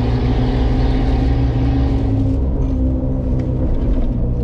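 Off-road 4x4's engine running steadily at cruising revs while driving. A hiss of road and wind noise over it thins out about halfway through.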